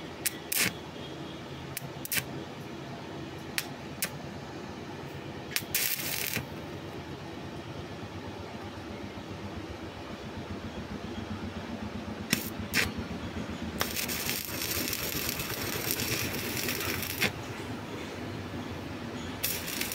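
Stick welding on a metal pipe joint: a few sharp clicks and short crackles as the electrode is struck against the pipe, then the arc holds and crackles with a steady hiss for a few seconds, stops, and starts again near the end. A steady low hum runs underneath.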